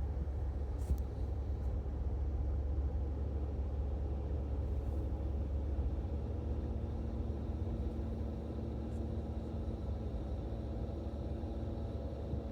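Seat Ibiza 6J engine running steadily with the air conditioning on, a constant low rumble. A faint steady hum joins about halfway through. This is the A/C-related noise that the owner thinks could be the compressor.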